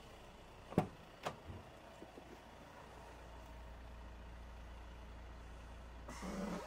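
Air Lift air suspension being inflated to raise the car: two sharp clicks about a second in, then a faint, steady low hum as air is fed into the bags, with a short hiss near the end.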